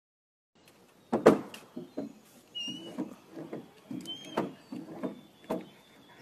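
Irregular wooden knocks and thumps, the loudest about a second in: a long stick carried by a dog bumping the railings of a wooden boardwalk as it walks along the planks.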